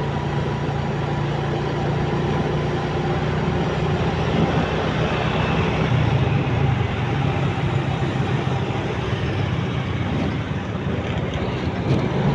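Motorcycle riding along at a steady speed: its engine running under a constant rush of wind and road noise, with other motorcycles and scooters riding close by.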